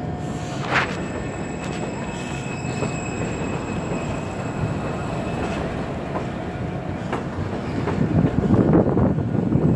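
New York City subway train on the N line moving along the platform: a steady rumble of steel wheels on rails, with thin, high wheel squeals held through the first half. The rumble grows louder and rougher near the end.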